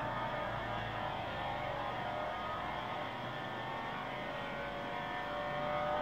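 Corvette drag car's V8 engine running hard on a pass down the drag strip, a steady, loud engine note.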